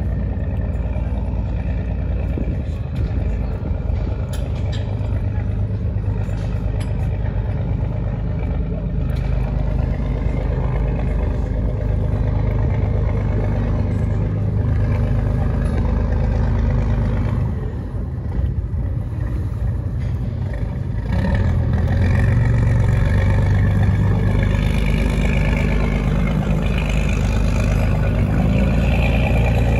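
Boat engine running with a steady low drone, growing louder about two-thirds of the way through as a boat passes close by.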